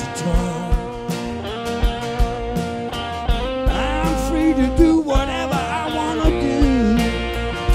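Live blues-rock band in an instrumental break: a Telecaster-style electric guitar plays a lead solo with notes bent up and down, over a drum kit keeping a steady beat.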